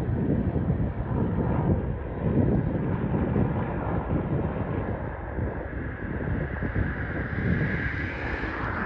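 Helicopter flying over at a distance, its rotor and engine sound mixed with wind rumbling on the microphone. A higher rushing hiss swells near the end.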